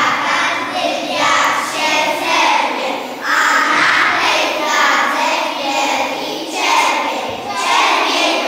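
A group of young children singing together in Polish.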